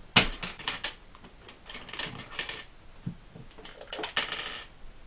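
Plastic Lego Technic pieces clicking and snapping as the lock bar is broken apart by hand: a sharp click just after the start, then clusters of clicks about two seconds and four seconds in.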